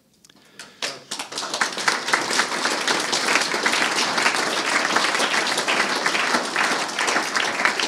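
Audience applauding: after a brief hush, many hands start clapping about a second in and keep up a steady applause.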